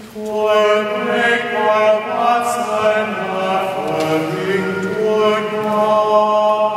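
A solo male voice chanting unaccompanied, holding long sustained notes that step slowly up and down in pitch, with a new phrase starting just after the start.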